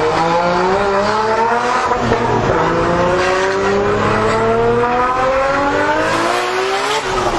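Nissan RB26DETT twin-turbo straight-six accelerating hard, its revs climbing steadily through the gears, with a shift about two seconds in and another near the end.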